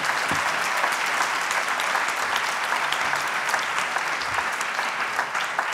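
Conference audience applauding steadily, a dense patter of many hands clapping that tails off slightly near the end.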